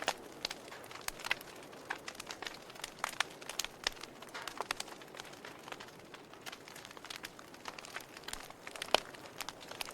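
Wood fire burning in a fireplace, crackling: irregular sharp pops and snaps over a soft steady hiss, with one louder pop near the end.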